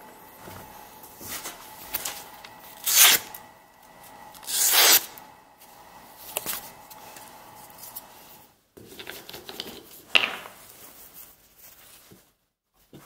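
Kiridashi knife slicing through sheets of paper to test its freshly honed edge: a series of crisp tearing slices, the two loudest about 3 and 5 seconds in, with paper rustling. Fainter rustles and a sharp click follow in the last few seconds.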